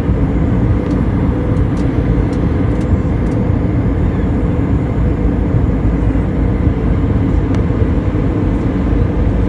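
Airliner cabin noise in flight: a steady, loud rush of engine and airflow sound heard from inside the passenger cabin.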